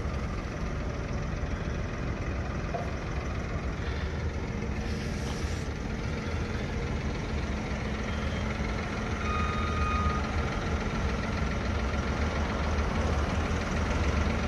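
Toyota forklift engine running steadily while it carries a load onto a trailer deck, with a single short high beep a little past halfway.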